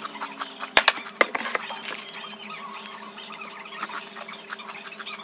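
Mouth-chewing of crunchy frosted cornflakes in milk, with a few sharp clicks about a second in, over a steady low hum.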